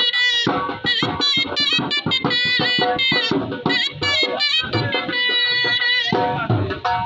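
Live street band music: a small reedy wind instrument with a flared bell plays a wavering melody in short phrases over dhol drum beats.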